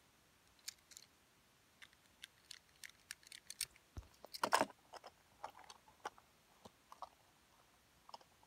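Handling noise from a small die-cast toy car and its cardboard box: scattered light clicks and taps, with a dull thump and a quick run of louder clicks and rustles about halfway through.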